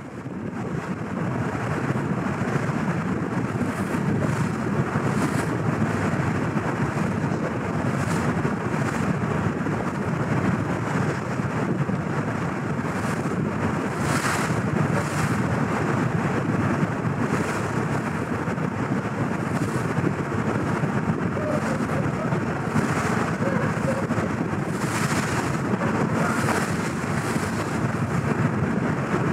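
Wind buffeting the microphone on the deck of a moving car ferry, over a steady low rumble from the ferry and sea water washing past. It fades in at the start.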